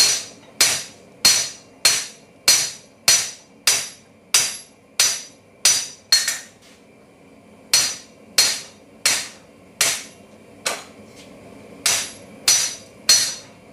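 Hand hammer striking a red-hot steel bar on an anvil, flattening it out into a thin mounting tab: steady blows about one every 0.6 s, each with a bright metallic ring. The blows stop for about a second and a half midway, then start again.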